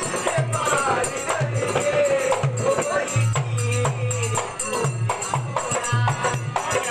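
Live Indian folk music: a dholak drum beating a steady rhythm under a wavering sung melody, with jingling percussion on nearly every beat.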